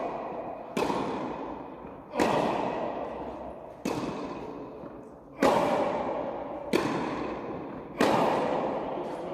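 Tennis ball being struck by a racket and bouncing on a hard indoor court: six sharp pops spaced about one and a half seconds apart, each ringing on in the echo of a large hall.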